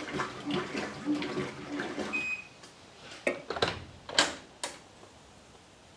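Whirlpool Cabrio top-load washer running its wash cycle: water sloshing in the tub, then a few sharp splashes, before it goes faint. It runs quietly with an older wash plate fitted, which cured the noise of the worn original.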